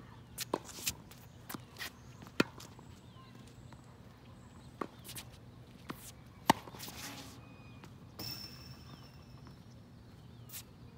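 Tennis rally on a wet hard court: a series of sharp ball strikes from racquets and ball bounces, the loudest a racquet hit about six and a half seconds in, with footsteps and short squeaks between shots.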